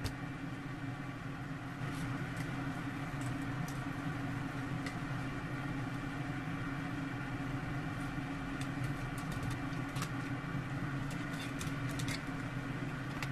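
Steady low machine hum with scattered light clicks and taps from a knife working on fish on a cutting board.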